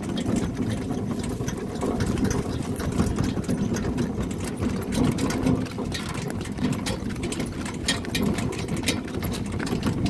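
Pony cart rolling over a rough grass and dirt track: a steady low rumble from the wheels with a dense, irregular clicking rattle from the cart.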